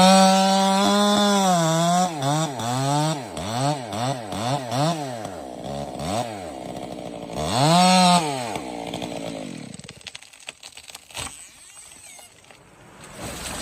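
Chainsaw engine revving: it rises to a high pitch and holds briefly, then the throttle is blipped in a run of quick rises and falls, revs once more about eight seconds in, and dies away in the last few seconds.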